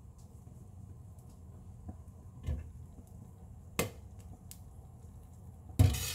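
Glass lid of a frying pan being lifted off, giving two sharp clinks, over a low steady hum. Near the end comes a louder, brief clatter, the loudest sound.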